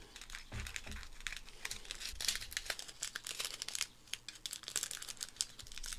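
Small plastic bag of diamond painting drills crinkling and crackling as it is handled.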